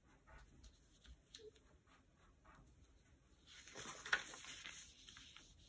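Black marker drawing small squares on paper, with faint short scratchy strokes. About three and a half seconds in, the sheet of paper is picked up and handled, rustling louder with one sharp crackle.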